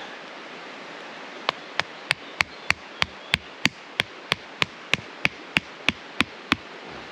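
A tent peg being hammered into the ground to stake out a tarp: about seventeen sharp, evenly spaced strikes at roughly three a second, starting about a second and a half in.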